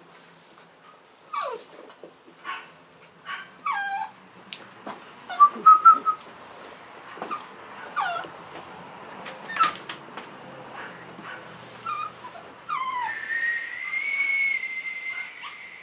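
Cavalier King Charles Spaniel puppies whining and whimpering in short, high, falling cries, over and over, the loudest about five to six seconds in. Near the end a steady high whistled note starts and holds for a few seconds.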